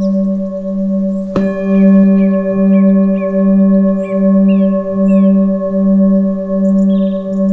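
Singing bowl ringing with a slow, wavering pulse in its low hum. It is struck again about a second and a half in, and the tone sounds on afresh.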